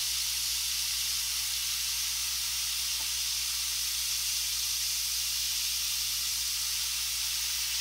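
Gravity-feed airbrush spraying thinned paint with the trigger held back, a steady high hiss of air through the nozzle.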